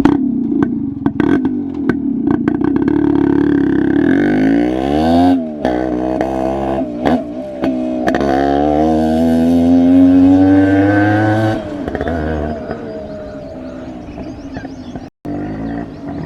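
Yamaha RX135's two-stroke single-cylinder engine running with the muffler baffle removed from its catalytic silencer, ridden under acceleration. Its pitch climbs, drops sharply about five seconds in, climbs again, then falls away near twelve seconds as the throttle comes off.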